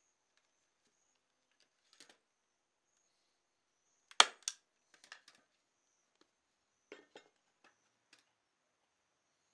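Hand staple gun firing staples through sheepskin into the wooden piston of a box bellows: sharp snaps, the loudest two about four seconds in, a few more about a second later and two near the end, with lighter clicks between.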